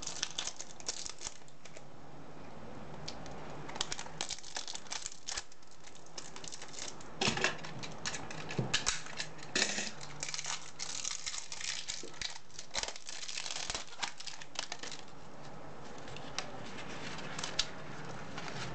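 Clear plastic wrapping crinkling and tearing as hands unwrap a rolled diamond-painting canvas: irregular crackles and snaps, busiest in the middle, with paper rustling as the roll is opened near the end.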